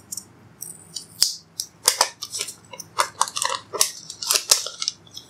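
Clear plastic protective film being peeled off the glass back of a Xiaomi Mi 11 Lite, crinkling and crackling in an irregular run of crackles and sharp clicks.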